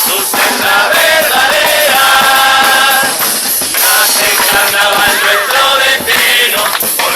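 A murga chorus singing together in full voice, holding a long chord about two seconds in, over percussion.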